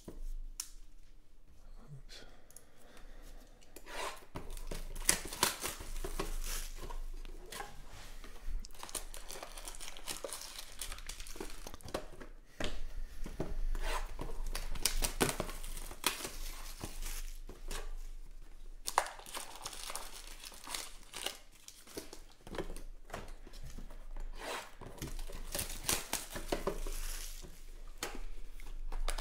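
Plastic shrink-wrap being slit with a box cutter and torn off a cardboard trading-card hobby box, the film crinkling and tearing in irregular bursts with cardboard handling clicks in between.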